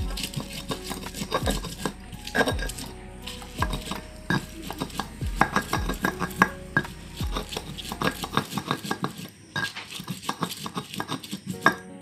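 Stone pestle grinding and knocking against a flat stone mortar, crushing chillies, shallots and garlic into a spice paste, with rapid repeated clacks of stone on stone. Background music with a low thumping beat plays underneath until about two-thirds of the way in.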